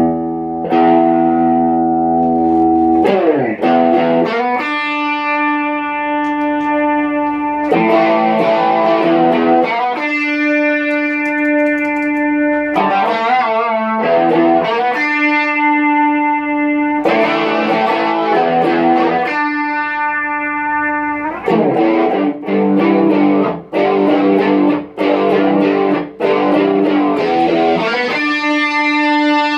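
Electric guitar lead played through effects pedals and amplifiers. Long sustained notes with a bend down about three seconds in and wavering string bends, giving way to shorter, choppier notes with brief gaps in the last third.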